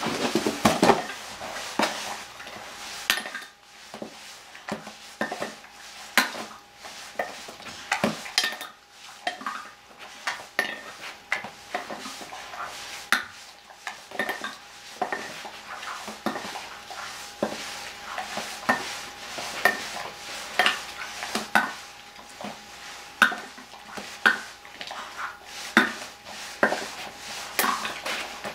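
A dog's muzzle working inside a stainless steel bowl: irregular metallic clinks and scrapes, several a second, as it noses and eats from the metal.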